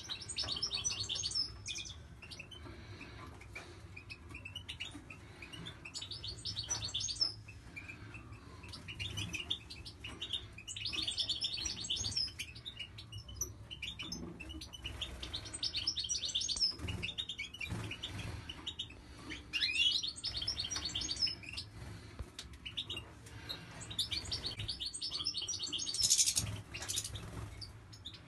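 Caged finches singing, with bursts of quick, high twittering every few seconds, over a low steady hum and a few soft knocks.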